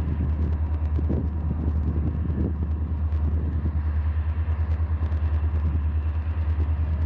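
Diesel engine of an EMD SD-series road-switcher locomotive running at low throttle, a deep, evenly pulsing throb, as the locomotive moves slowly along the yard track with cars.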